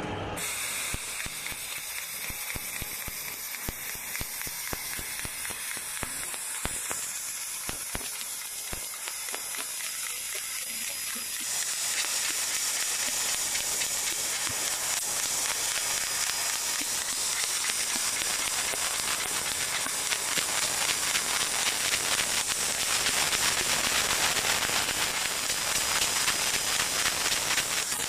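Fiber laser cutter cutting sheet steel: a steady hiss of gas from the cutting head with a sizzling crackle, a few sharp clicks in the first half, growing louder a little under halfway through.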